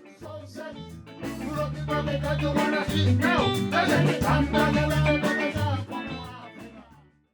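Band music with bass and guitar, growing louder about a second in and fading out near the end.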